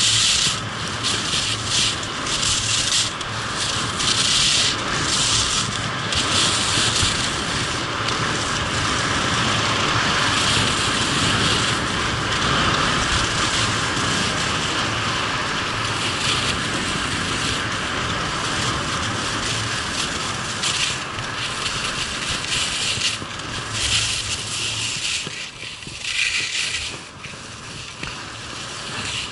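Skis scraping and hissing over hard-packed piste snow on a downhill run, swelling and easing irregularly, with wind rushing over the microphone.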